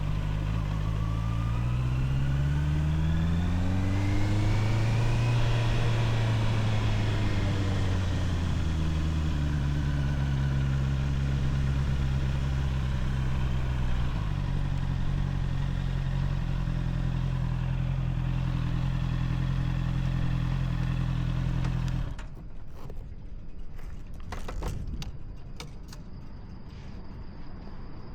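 Honda CBR650R inline-four engine on its stock exhaust, rising in revs over the first few seconds, easing back and running steadily, then shut off suddenly about 22 seconds in. A few light clicks and taps follow.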